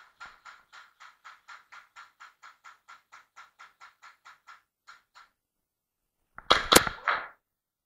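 Fast, even clicking, about five clicks a second, that stops after about five seconds, followed by a brief loud clatter of sharp knocks near the end.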